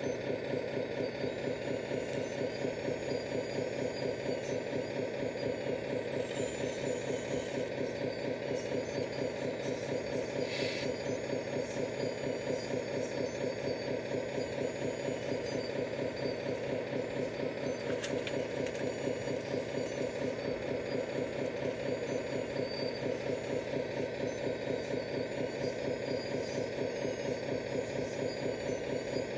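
Radio-controlled model excavator working, a steady engine-like drone with a fast, even pulse. A short higher sound comes about ten seconds in and a sharp click about eighteen seconds in.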